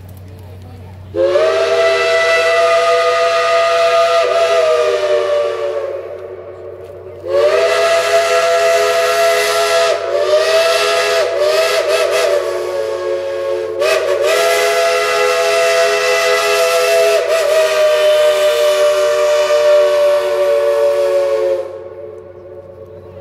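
Steam locomotive's multi-tone chime whistle blowing loud: a blast of about five seconds, then after a short pause a long blast of about fourteen seconds that wavers and flutters in the middle. Its chord sags slightly in pitch toward the end of each blast, and the whistle cuts off sharply near the end.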